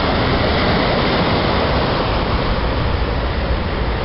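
Surf washing up on a sandy beach: a steady rush of breaking waves with a low rumble underneath.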